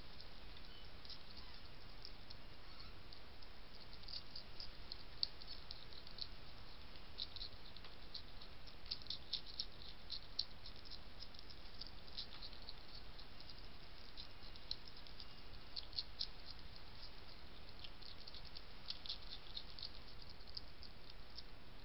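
European hedgehog crunching dry kitten kibble from a plate: irregular clusters of small rapid clicks, over a steady hiss.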